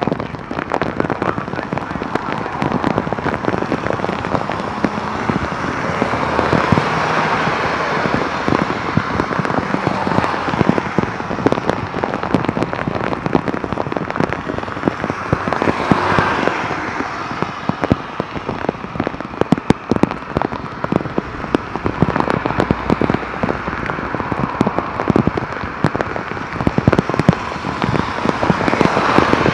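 Torrential rain: a steady hiss of the downpour with a dense, crackling patter of drops striking the microphone, swelling a little in the middle.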